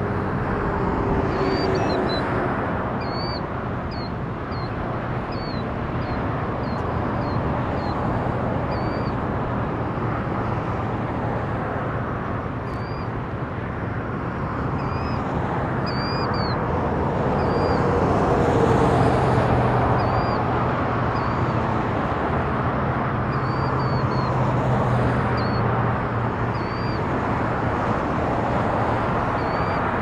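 Killdeer calling: short, high, sharp notes repeated many times, sometimes in quick runs. They sit over a louder, steady rumble of road traffic, which swells about two-thirds of the way through as a vehicle goes by.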